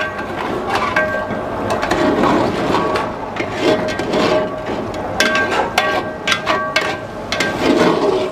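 A steel ladle stirring and scraping goat trotters through thick masala in a steel pot, knocking repeatedly against the pot's sides. Some knocks ring briefly.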